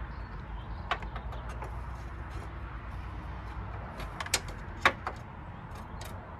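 Sharp metallic clicks and taps from a universal battery clamp's hook rod being fiddled against the engine bay, the loudest two about four and five seconds in, over a steady low rumble.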